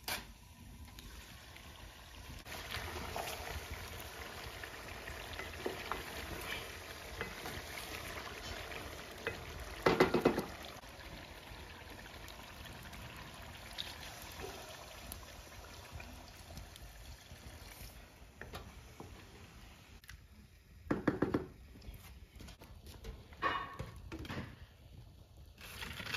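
Liquid poured from a bowl into a metal cooking pot in a long, steady pour, with two loud clattering clanks about ten and twenty-one seconds in. Smaller knocks near the end as firewood is pushed into the stove.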